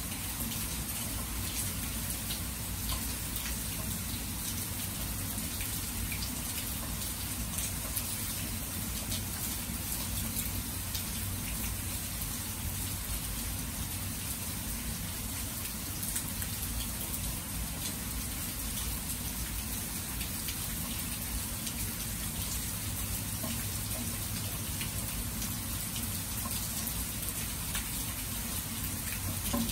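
Steady rain falling, an even hiss with many small drop ticks and a low rumble underneath.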